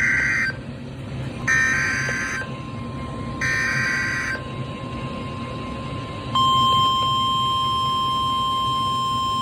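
Emergency Alert System SAME header: three short bursts of screechy two-pitch data tones, each about a second long and about a second apart, the first ending just after the start. About six seconds in, NOAA Weather Radio's steady single-pitch warning alarm tone begins and holds, signalling a warning alert.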